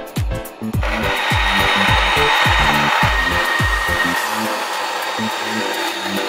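350 W benchtop band saw blade cutting through a wooden strip fed along the fence: a steady rasping cut starting about a second in, with a thin high whine in it for the first few seconds.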